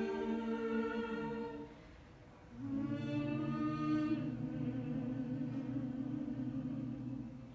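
Mixed-voice a cappella group singing the final chords of a song: a held chord fades out, and after a short pause a lower chord swells in, with a high voice briefly above it, held for several seconds before fading near the end.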